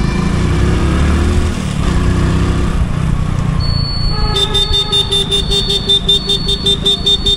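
Engine and road rumble while riding a motorbike in traffic. A little over halfway through, a rapid electronic beeping starts, about four to five high beeps a second, lasting about three seconds.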